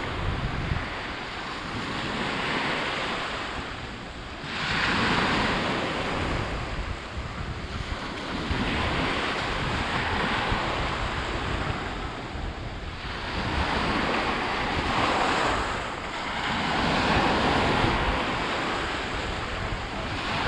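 Sea waves washing onto the shore, surging and ebbing in swells every four to five seconds, with wind rumbling on the microphone.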